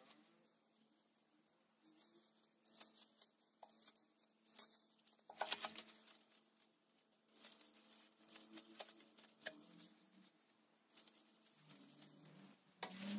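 Faint, scattered scrubbing and scraping strokes as soapy bathroom surfaces are scrubbed by hand.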